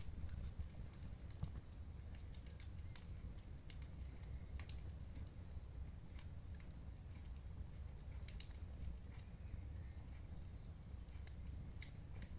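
Wood fire crackling in a fireplace: irregular small snaps and pops over a low, steady rumble.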